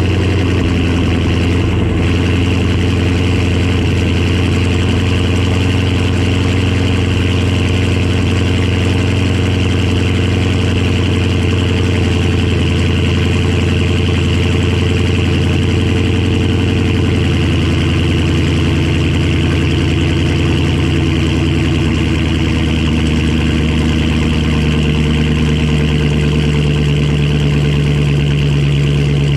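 Dodge Charger HEMI V8 running with catless stainless mid pipes, idling fast and deep just after a cold start. The pitch steps down slightly about halfway through as the cold idle settles.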